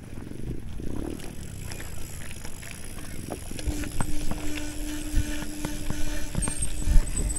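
Bicycle rattling and knocking over a rough, rocky dirt track, with tyres crunching on loose stones. The knocks come thicker and louder after about three and a half seconds, when a steady hum also starts.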